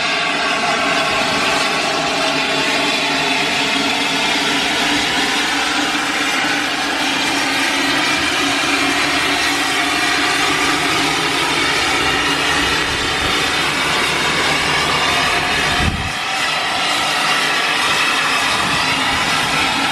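Train running steadily, a loud continuous rumble with slowly shifting tones, and one sharp knock about sixteen seconds in.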